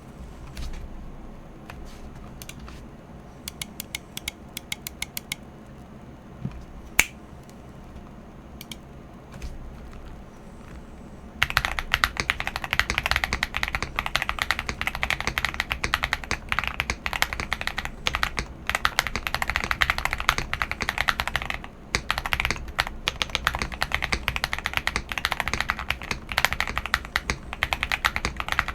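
CIY GAS 67 mechanical keyboard with unlubed KTT Wine Red linear switches, GMK DMG clone keycaps, a tape mod and foam in the case, being typed on. A few scattered keystrokes at first, then from about eleven seconds in fast continuous typing, with a brief pause about 22 seconds in.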